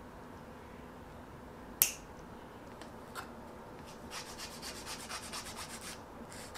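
A nail clipper snaps shut once on a fingernail, the loudest sound. Later a nail file rasps across the fingernail in quick back-and-forth strokes for about two seconds, with a few more strokes near the end.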